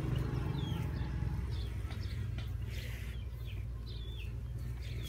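A chick peeping in several short, falling chirps, with brief rustles of straw and a low steady rumble underneath.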